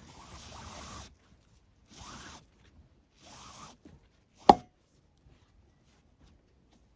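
4 mm nylon paracord rubbing as it is pulled through the knots in three strokes, the first about a second long, then one sharp click.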